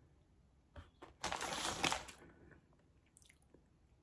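A crinkly chip bag rustling for about a second, preceded by a single light click.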